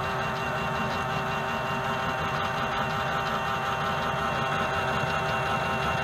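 Small electric motor of a Miele toy washing machine running steadily as it turns the drum with water inside, a constant whine at one pitch.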